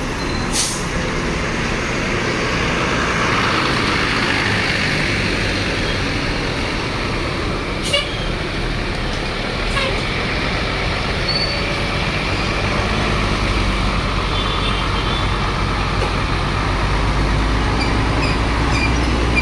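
Tour bus engines running under a steady hiss and traffic noise, with a deeper engine drone growing louder over the last few seconds. A few short sharp clicks cut through.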